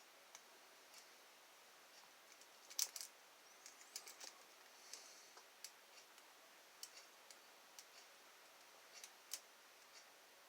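Faint, irregular metallic clicks and ticks of a lock pick working the pin stacks of a seven-pin ILCO lock. The loudest click comes a little under three seconds in.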